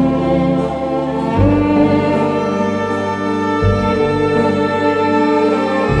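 Background music played by bowed strings: held chords with the bass note changing about every two seconds.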